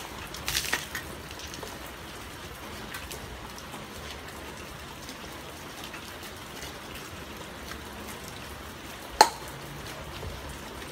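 Steady rain falling. A short clatter of sharp knocks comes about half a second in, and one loud sharp knock near the end.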